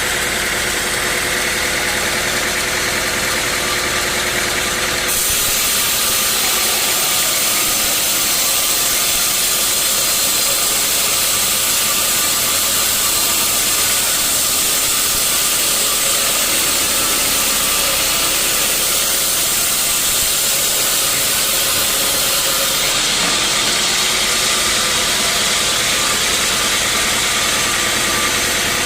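Sawmill machinery running steadily with an engine underneath. The sound turns abruptly harsher and hissier about five seconds in, then drops back just before the end.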